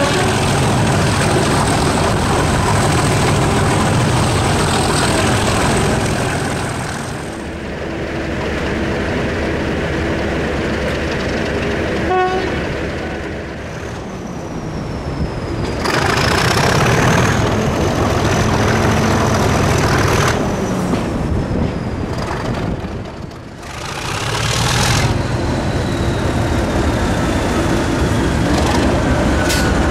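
English Electric Class 37 diesel locomotive running under power, heard loud from the train just behind it. The engine noise eases off for several seconds and builds again, with a brief horn note about twelve seconds in.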